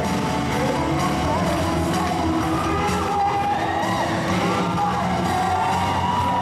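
A male singer singing into a handheld microphone over a backing track, with long held notes that bend slightly in pitch.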